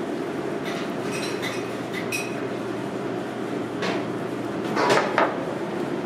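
Cutlery and dishes clinking over a steady background hum. A few short ringing clinks come about a second in, and sharper knocks of metal on a plate come near the end.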